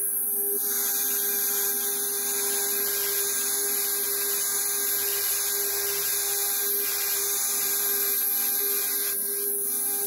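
DeWalt plunge router with a dome cutter running at full speed while plunge-cutting dimples into Valchromat fibreboard: a steady, high-pitched motor whine over a hiss.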